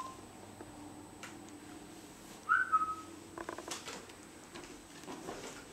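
A toddler's short high-pitched vocal call, about two and a half seconds in, falling slightly in pitch, with a few light knocks of toys around it.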